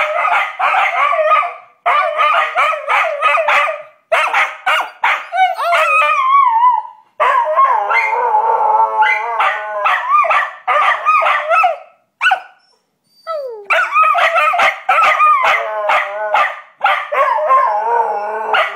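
Australian cattle dogs howling together in high, wavering wails, mixed with sharp yips. The howling breaks off briefly a few times and pauses for about a second and a half near the middle.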